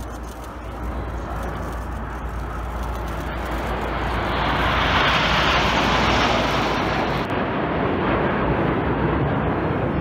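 A formation of nine BAE Hawk T1 jets flying past overhead, the noise of their turbofan engines swelling to a peak about five to six seconds in and staying loud.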